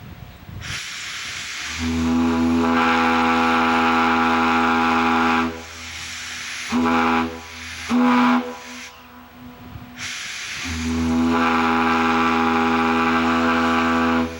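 Large American Shipbuilding ship's whistle blown on compressed air, sounding a deep, rich chime tone: one long blast, two short toots, then a second long blast that cuts off near the end. Each blast opens with a hiss of air before the tone builds.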